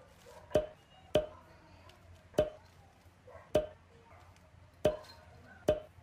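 Plastic toy dinosaurs set down one after another on a hard tabletop: six sharp knocks, roughly one a second.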